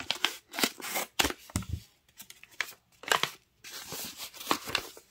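Paper rustling and crinkling in quick, irregular bursts as a small kraft paper envelope is handled and opened.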